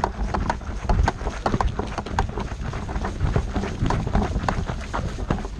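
Quick footsteps of a player on the move, a run of sharp irregular knocks a few times a second over a low rumble.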